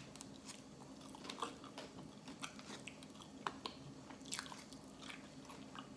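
Close-up mouth sounds of chewing a mouthful of sushi roll: faint, irregular small wet clicks and crunches.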